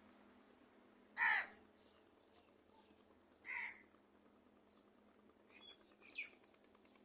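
Crow cawing: two loud caws about two seconds apart, then a couple of fainter, shorter calls near the end.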